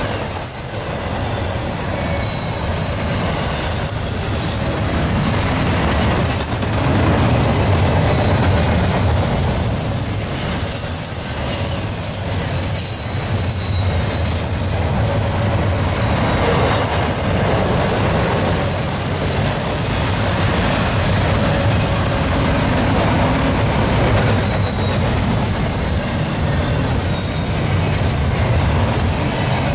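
Norfolk Southern double-stack intermodal freight train rolling steadily past, its steel wheels running over the rail joints. Short high-pitched wheel squeals come and go throughout.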